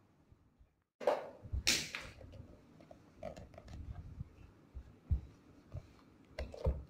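A clothes iron pressing narrow fabric strips on a padded ironing board, starting about a second in: sliding, scraping and rustling, with a few dull knocks as the iron is set down and moved.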